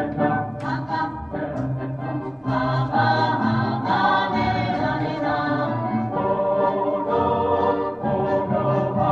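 Jewish choral music playing: a choir singing in steady, sustained voices.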